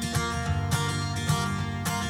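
Background music with a strummed acoustic guitar and a steady beat.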